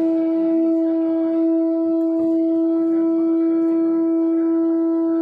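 One steady note held on an electronic keyboard, its pitch unchanging throughout, as stage background music for a play.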